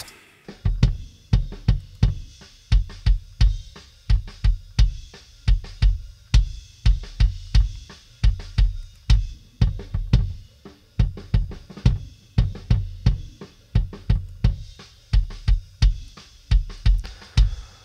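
Soloed rock kick drum track playing back through an SSL channel strip EQ plugin: a rapid, uneven pattern of deep thumps, with faint snare and cymbal bleed from the kick microphone.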